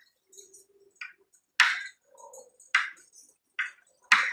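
Chalk writing on a chalkboard: about five short strokes and taps, roughly one a second, the loudest about one and a half seconds in.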